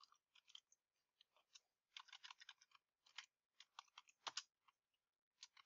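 Faint computer keyboard typing: short clusters of light keystroke clicks.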